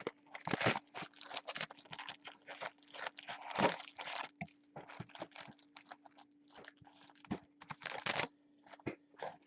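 Plastic wrapping on a box of basketball trading-card packs being torn open and crinkled, in irregular rustling strokes.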